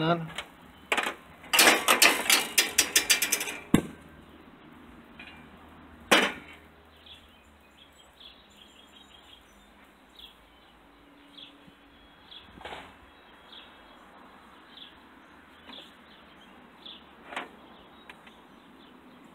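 Ratchet wrench clicking rapidly for about two seconds while the seat fasteners of a riding lawnmower are undone, followed by two sharp knocks and then faint, scattered ticks.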